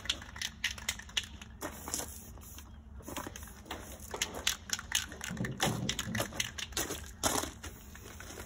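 Footsteps crunching and shuffling on loose gravel: many short, irregular crunches and clicks, thickest a little past the middle.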